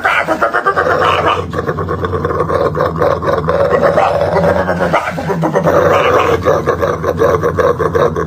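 A dog snarling and growling together with a man's fast, repeated 'bop' vocal noise, loud and continuous with a rapid rattling pulse.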